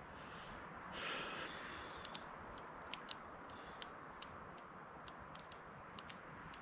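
Light, irregularly spaced clicks, as from a fingernail tapping a smartphone's touchscreen, over a steady low rush of wind, with a brief rustle about a second in.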